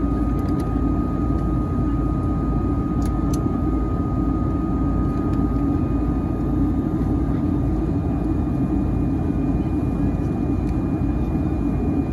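Boeing 757-300 jet engine and airflow noise heard inside the cabin from a window seat beside the engine, a steady low rush with a thin steady whine. A second, higher whine joins about two-thirds of the way in.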